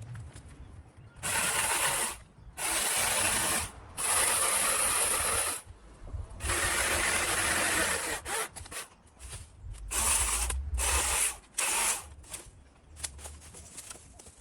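Pole saw cutting through a fallen tree branch in a series of rasping strokes, each about a second long with short pauses between them, then several shorter, choppier strokes in the second half.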